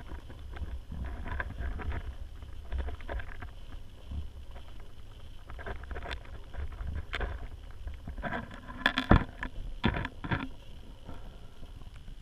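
Muffled underwater sound picked up by a GoPro in its waterproof housing, submerged in a turtle tank: a steady low rumble with scattered knocks and clicks as turtles bump and scrape against the camera. The loudest knocks come in a cluster about nine to ten seconds in.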